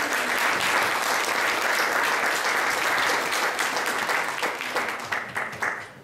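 Audience applauding: many hands clapping together, thinning out and dying away near the end.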